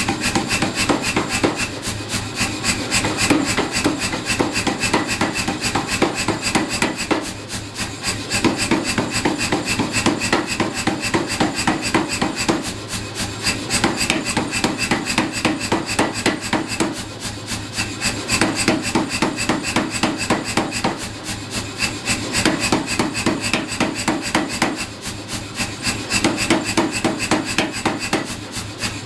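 Power hammer striking a hot, twisted iron bar in rapid, even blows, forging it back to a square section. The hammering eases off briefly every few seconds, over a steady low hum.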